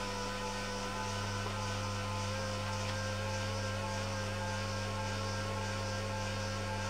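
Belmash DS260-W drum sander running unloaded: a steady electric motor hum with a few fainter, higher steady whining tones, the machine running so that its conveyor belt's tracking can be adjusted.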